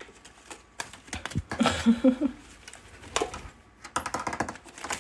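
Irregular light taps, clicks and rustles of tea packets being pulled and flicked out of their box. A brief low vocal sound about two seconds in.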